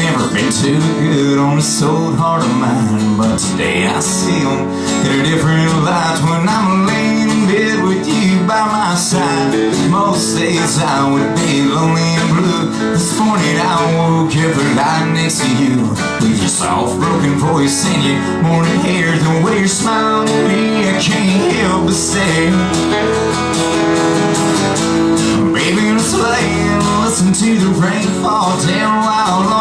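A man singing a country song to his own strummed acoustic guitar, a solo live acoustic performance.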